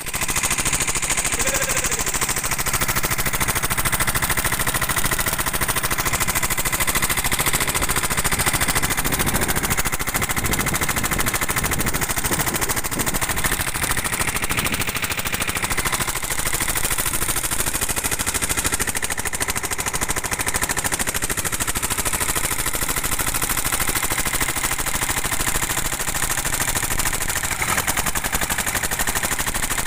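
Small inboard engine of a wooden river boat running steadily under way, a fast, even knocking rattle.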